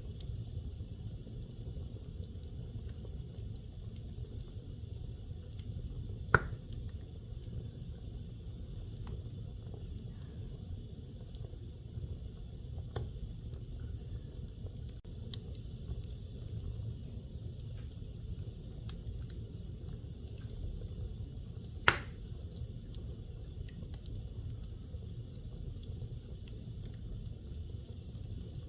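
Fire burning in a fireplace: a steady low rumble of flames with scattered small crackles, and two sharp pops, about six seconds in and again near twenty-two seconds.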